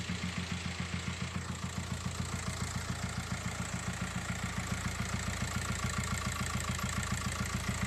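Volkswagen 1.9 TDI four-cylinder diesel idling with a steady, rhythmic pulsing knock that grows slightly louder. The noise comes mainly from the air filter housing, where exhaust gas is blowing back into the intake; the mechanic suspects an exhaust valve that is not opening, from a worn camshaft or faulty exhaust hydraulic lifters.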